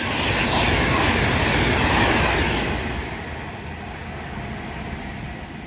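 Class 390 Pendolino electric train passing through the station at speed without stopping: a rush of wheel and air noise that swells, peaks about two seconds in, then slowly fades as the train draws away.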